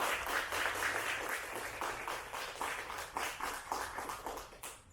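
Audience applauding: dense clapping that thins out and stops just before the end.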